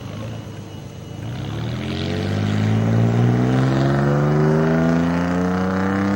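A car engine accelerating, its pitch climbing slowly and steadily from about a second in.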